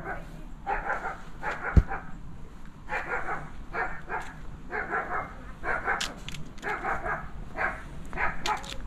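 A dog barking over and over, about once a second, with a sharp knock about two seconds in.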